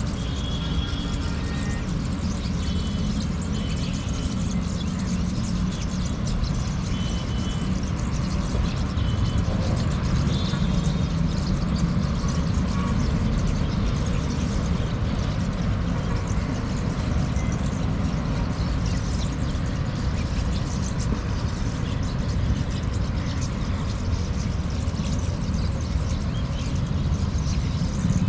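Steady road-traffic noise, a continuous low rumble with hiss above it, with a few short high chirps in the first ten seconds or so.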